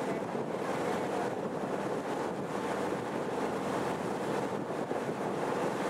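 Steady rushing wind noise on the microphone aboard a moving boat, mixed with the wash of water.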